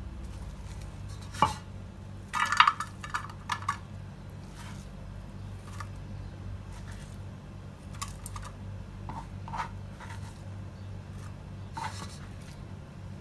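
Sliced onions being scooped off a plastic cutting board by hand and dropped into a metal pot, giving scattered light knocks and clinks, busiest in the first few seconds. A steady low hum runs underneath.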